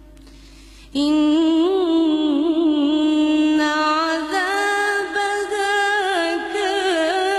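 A woman reciting the Quran in a melodic, chanted style. After a pause of about a second her voice comes in loud and holds long, ornamented notes that waver up and down in pitch.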